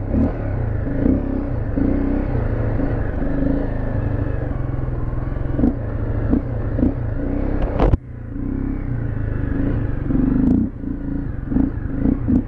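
Fuel-injected dual-sport motorcycle engine running at low trail speed, the throttle opening and closing unevenly in surges. A sharp click comes about eight seconds in, followed by a brief dip in loudness.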